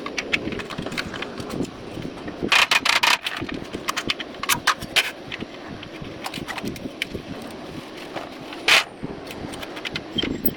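Irregular sharp clicks and knocks of hard objects being handled, bunched in a quick flurry about two and a half seconds in, with a short scraping hiss near the end.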